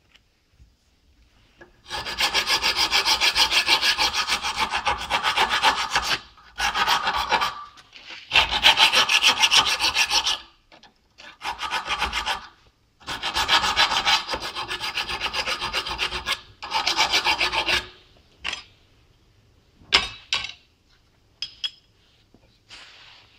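Rough hand file rasping the rust off a steel handbrake shoe lever clamped in a vise, in six runs of strokes a few seconds each, then a few light metal clicks near the end.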